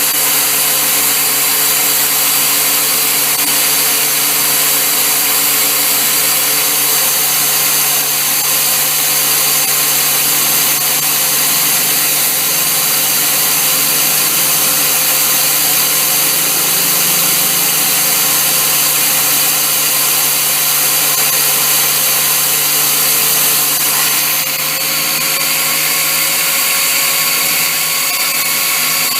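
Handheld electric power tool running continuously at a steady speed with a high whine, working at a broken water pump stud in an engine block; it eases slightly a few seconds before the end.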